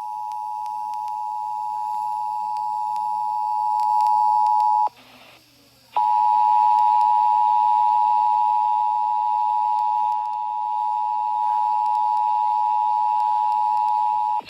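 Emergency Alert System attention signal on an FM radio broadcast: a steady two-tone alert (853 Hz and 960 Hz sounded together). It drops out for about a second about five seconds in, resumes, and cuts off near the end.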